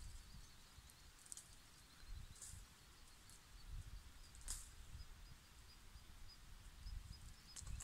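Quiet: a dromedary camel browsing in a thorny tree, leaves and twigs crackling in short bursts about four times as it tears at the branches. Under it, a low rumble and a faint, high, steady chirping.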